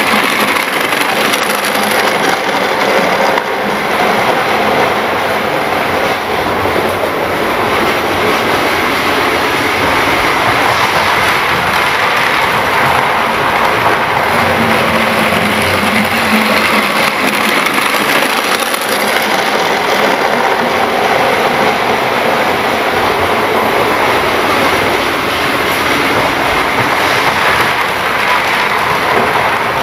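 Model train running round its track: a steady rolling rattle of small wheels on the rails with the motor's whir, loud as it passes close at the start and carrying on as it circles the layout.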